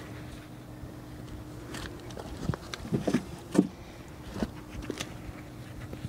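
Gloved hands digging through loose soil in a raised bed to pull out potatoes: soft rustling with a string of irregular knocks and thumps, the loudest a little past the middle. A faint steady hum runs underneath.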